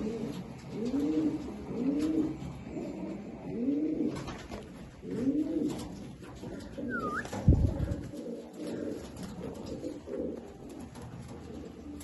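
Fantail pigeons cooing in a run of arched coos about one a second, during a courtship display, the coos growing fainter in the second half. A sudden low thump just past the middle.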